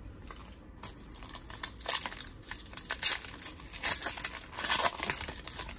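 Foil wrapper of a 2021 Donruss football trading-card pack being crinkled and torn open by hand, a run of irregular sharp crackles starting about a second in.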